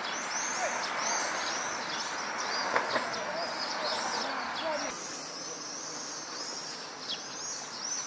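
Many small birds chirping, a dense stream of short, high, overlapping chirps over a steady background hiss.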